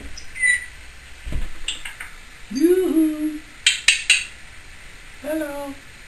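Timneh African grey parrot making a string of mimicked noises: a brief high whistle, a low hoot-like call that rises and then holds, a quick run of sharp clicks, and a shorter low hoot near the end.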